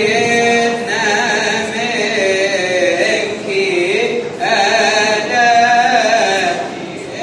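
Coptic liturgical chant: voices singing a slow hymn in long held notes that glide and waver in pitch, with short breaks between phrases.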